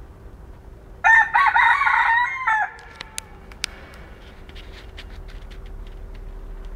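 A rooster crows once, a single call lasting about a second and a half, followed by a couple of sharp clicks.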